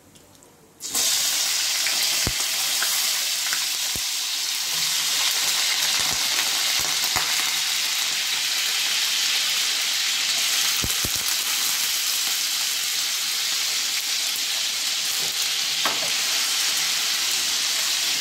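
Cubed raw potato dropped into hot oil with cumin and mustard seeds in a nonstick frying pan, breaking into a loud, steady sizzle about a second in, with a few scattered clicks as more pieces go in and a wooden spatula stirs them.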